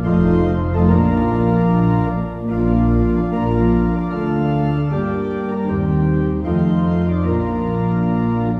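Organ music playing slow, sustained chords, the held notes changing about once a second.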